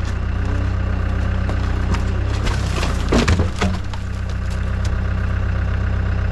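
CAT 252B skid steer's diesel engine running steadily while it pushes over a tree, with wood cracking and splintering and branches crashing down between about two and three and a half seconds in, loudest just after three seconds.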